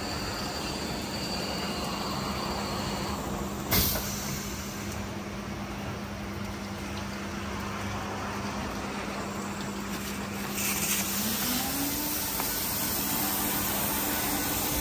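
Christ Genius Vitesse rollover car wash machinery running: a steady motor hum, a sharp knock about four seconds in, and a hiss that comes up near eleven seconds as a motor's pitch rises.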